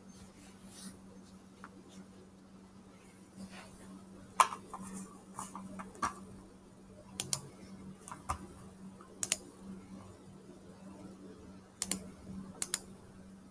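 Scattered clicks of a computer mouse and keyboard: about a dozen short sharp clicks, several in quick pairs, over a steady low hum.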